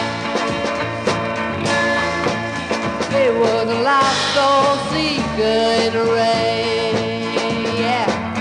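1968 garage-rock record playing an instrumental passage: band chords over a steady drum beat, with a lead line that bends and wavers in pitch from about three seconds in.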